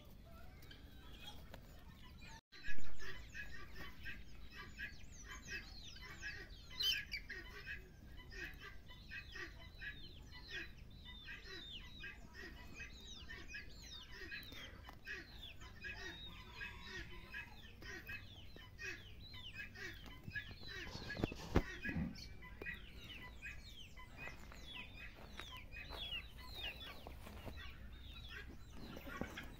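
Many birds chirping without pause in a farmyard, short high calls falling in pitch several times a second. A brief loud knock comes about three seconds in.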